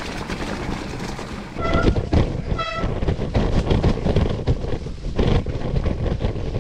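Mountain bike riding down a wet, muddy trail: a steady rush of tyre, trail and wind-on-the-microphone noise, rougher and heavier after about a second and a half. Two brief high squeals come about two and two and a half seconds in.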